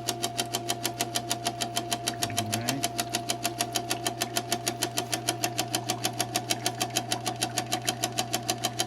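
Insignia NS-IMN44BS4 nugget ice maker running with a fast, even knocking, about seven knocks a second, over a steady motor hum. The knock is the machine's fault, which the owner suspects comes from loose bolts or something touching.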